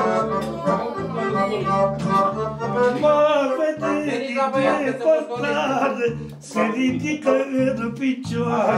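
Wedding band music: a singer over an electronic keyboard playing an accordion-like lead line and steady bass notes.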